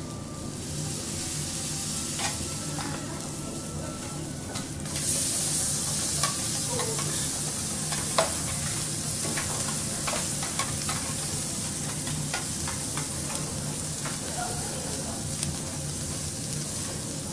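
Food sizzling on a hot teppanyaki griddle, with scattered sharp clicks. The sizzle swells suddenly about five seconds in, then holds steady.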